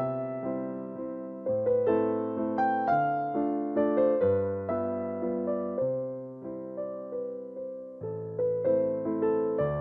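Background piano music: a melody over chords, each note struck and then fading.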